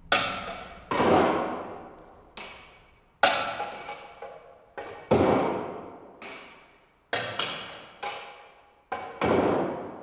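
Percussive music: about ten irregularly spaced struck hits, each ringing out and fading over a second or two.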